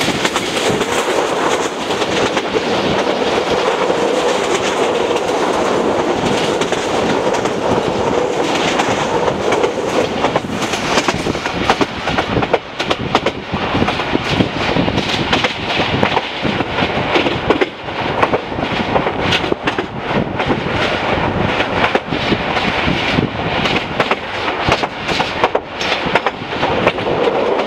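Passenger train running along the track, heard from inside a carriage at an open window: a steady rumble and rattle of wheels on rail, with many sharp clicks over rail joints from about twelve seconds in.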